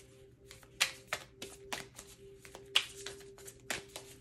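A deck of cards being shuffled by hand, a quick irregular run of card slaps about three or four a second.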